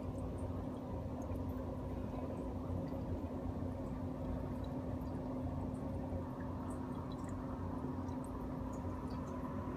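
Aquarium pump running: a steady low hum with scattered faint drips and ticks of water.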